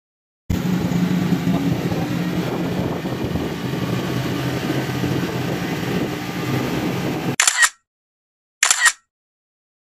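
A steady noisy rumble with a low hum, starting abruptly about half a second in and cutting off near the end. It is followed by two short camera-shutter clicks, a little over a second apart.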